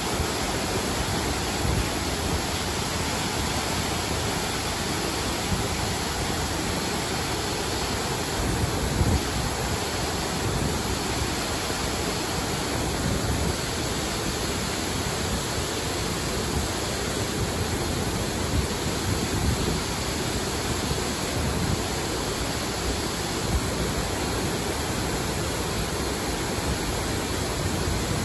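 Steady, unbroken rush of a man-made waterfall pouring into a shallow stream.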